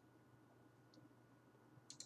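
Near silence: quiet room tone with two faint, short clicks, one about a second in and one near the end.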